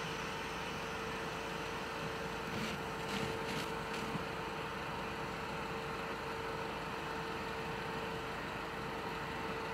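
Sapporo streetcar snow-sweeper Yuki 23 running slowly with a steady electric hum. A few short, sharp noisy bursts come around three to four seconds in.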